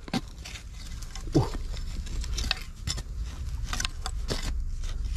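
A metal blade scraping and jabbing into dry, crumbly soil at a burrow mouth, with loose earth and clods rattling down in irregular short scrapes and knocks. One sharper thud about one and a half seconds in.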